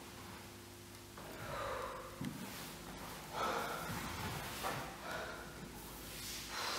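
A woman's heavy breathing under exertion: four or five loud, rough breaths at irregular intervals, with a short knock about two seconds in. A steady low electrical hum runs underneath.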